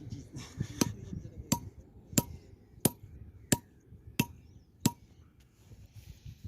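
A hammer striking metal seven times at an even pace, about three blows every two seconds, each blow with a short metallic ring.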